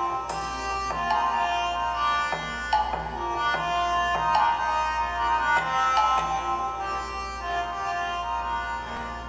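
Instrumental background music: a melody of held notes over a regular drum beat.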